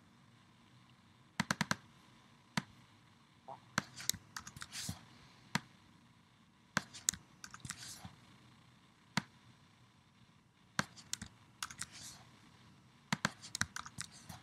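Computer mouse clicks and keyboard key presses: sharp single clicks and quick bunches of two to five clicks, every second or so, as objects are selected and deleted.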